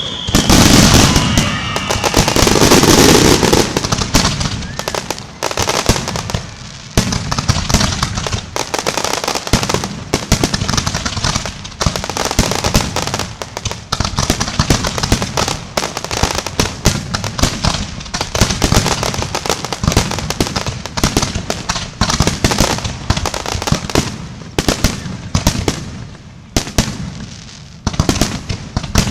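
Fireworks display going off: a dense run of sharp bangs and crackles without a break, heaviest and loudest in the first few seconds.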